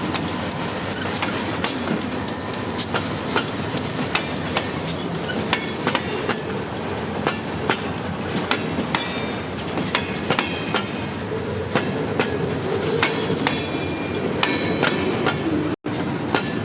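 Freight train of empty boxcars rolling past, the wheels clicking irregularly over rail joints under a steady rumble. The sound drops out for an instant near the end.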